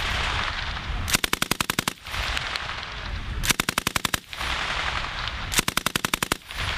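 M240L 7.62 mm belt-fed machine gun firing three short bursts of several rounds each, each burst under a second long, with echo carrying between the bursts.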